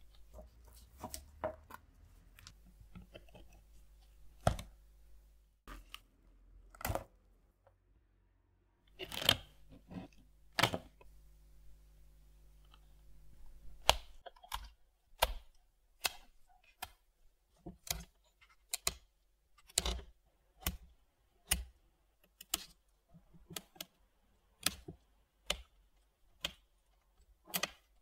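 Sharp snips of a blade cutting through the stitching of the radio's leather case, repeating at about one a second from about halfway on. Before that there are scattered clicks and knocks of small parts being handled as the radio is taken apart.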